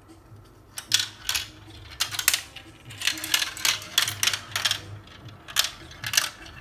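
Marbles clacking and rattling down a plastic marble run: irregular sharp clicks begin about a second in, come thickest in the middle, and return twice near the end.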